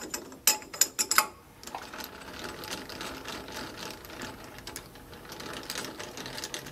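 Steel 5C collets clinking with a bright ring as one is pulled from the lathe spindle nose, several sharp clinks in the first second or so. A steady, fast, light mechanical rattle follows.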